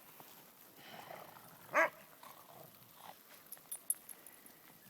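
A dog gives one short, high bark a little under two seconds in. A few faint high jingling clicks follow later on.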